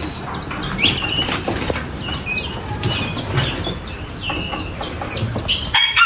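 Caged birds in an aviary chirping again and again, short high calls, while wings flap and flutter, with scattered light knocks among them.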